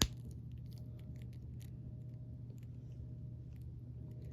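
A sharp plastic click at the start, then faint scattered clicks and taps from a plastic action figure and its saber being handled and posed, over a steady low hum.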